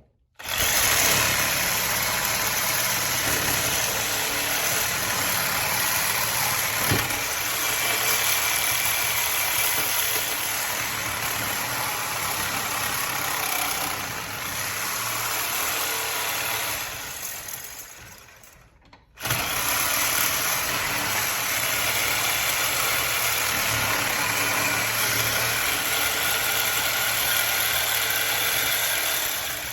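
Angle grinder with a cut-off wheel running and cutting through a microwave magnetron's steel casing to get at the copper. It runs steadily, winds down about two-thirds of the way through, then starts again abruptly and keeps cutting.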